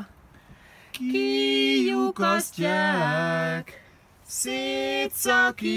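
Unaccompanied singing: two sung phrases of long held notes, the first starting about a second in and the second after a short break just before the four-second mark.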